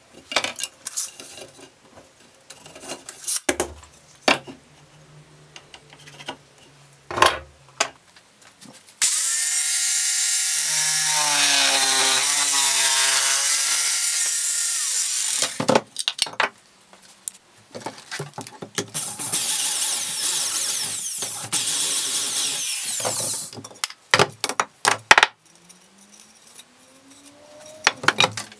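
An electric jigsaw cutting wooden boards, running for about six seconds in the middle with a whine that wavers as it cuts, then cutting again for about five seconds a little later. Around the cuts, boards and tools are set down on the workbench with scattered knocks and clicks, and a short rising whine comes near the end.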